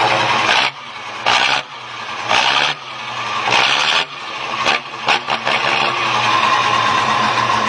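Old FNM truck's diesel engine heard at the tailpipe, revved in a series of short throttle blips about a second apart, each a loud exhaust blast. It settles back to a steady run near the end.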